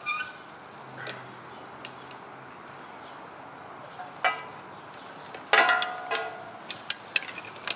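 Scattered metallic clinks and knocks, like hand tools and bolts being handled on a go-kart frame. The loudest is a short clattering, ringing jangle a little past halfway, and a few sharp clicks follow it.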